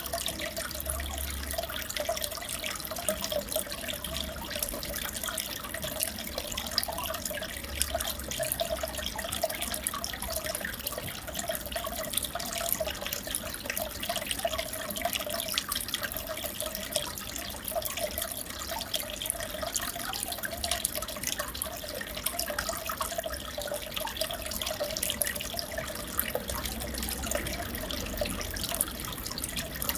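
Aquarium water bubbling and trickling steadily, full of tiny bubble pops and drips.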